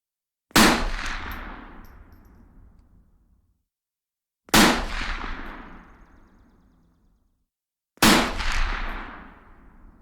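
Three single rifle shots, about four seconds apart, each a sharp crack followed by a long echo that dies away over two to three seconds.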